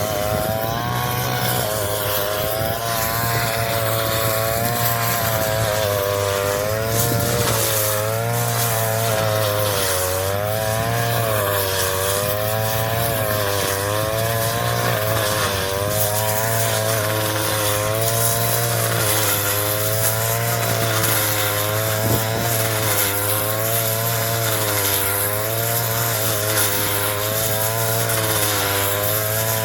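Engine-driven straw chopper running steadily while cutting rice straw, its pitch wavering up and down every second or two.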